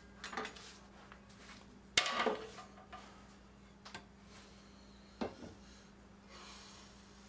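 Handling sounds at a stopped table saw: a few sharp knocks and clacks of wood and tools being set down, the loudest about two seconds in, over a faint steady hum.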